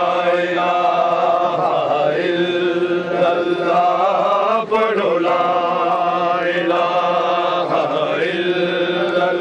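Men chanting a religious refrain in long, held phrases, each starting with a rising swoop, a new phrase about every two seconds.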